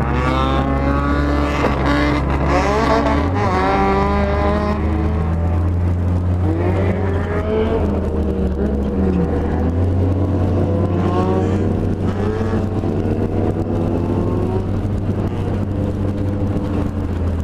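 Dodge Neon compact race car's four-cylinder engine running, heard from inside the car, revving up and easing off several times over a steady low drone.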